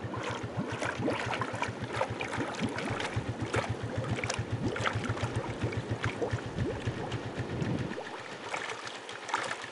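A small engine running with a rapid, even low beat and some rattling over it; the beat stops about eight seconds in.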